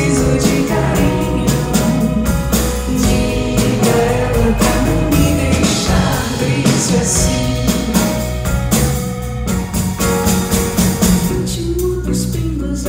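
Live band playing a pop song: a woman singing lead over drums, electric guitar and keyboard, with a steady beat.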